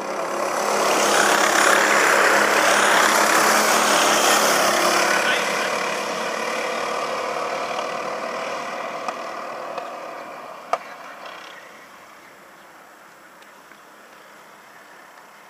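A pack of racing kart engines running at speed as the karts pass close by, loudest in the first few seconds, then fading steadily as they go away until only a faint hiss is left. A single sharp click sounds about ten seconds in.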